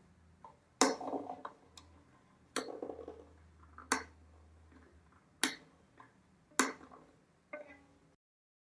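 Violin tuning peg being turned in its pegbox while a new string is wound on, giving about six sharp wooden clicks one to two seconds apart, with fainter ticks between them.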